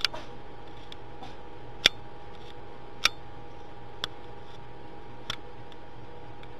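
Five sharp clicks at uneven intervals, the loudest about two seconds in, over a steady low hum.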